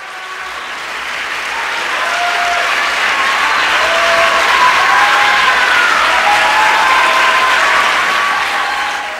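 Audience applause, building over the first few seconds, holding, and dying away near the end.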